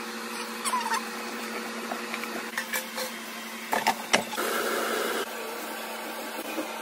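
Steady hum of a kitchen appliance's motor or fan, with a few clicks and clatters and a short burst of hiss a little past the middle.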